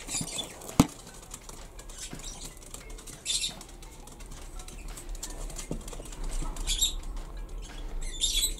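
Small plastic toy pieces being handled and pressed together, with a sharp click about a second in and a few short bursts of rustling.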